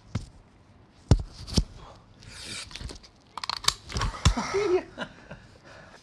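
Comic sound effects of a seatbelt being pulled across and buckled. A few separate thumps come first, then a hiss as the strap draws out, then a quick run of clicks ending in two heavy thumps and a short squeak.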